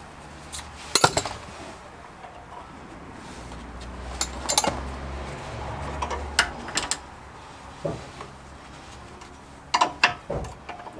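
Metal hand tools clinking and clanking against car suspension parts in scattered sharp strikes. A couple come about a second in, a cluster around the middle, and several near the end.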